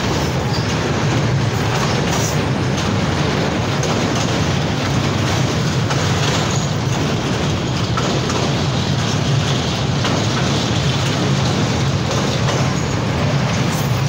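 Train running across a steel truss bridge, a steady loud rumble and rattle of wheels on the rails heard from beside an open carriage window.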